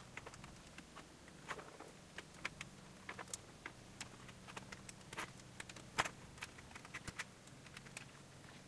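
Faint, irregular small clicks and rustles of a nylon dog collar being handled and pushed through the elastic loops on the back of a fabric bow tie.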